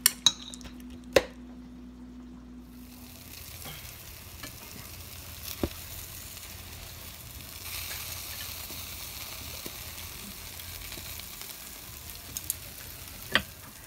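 Utensils click twice against a stainless steel bowl while marinated duck is stirred. Then duck pieces and pork intestines sizzle steadily on a grill rack, with an occasional click of tongs on the grate.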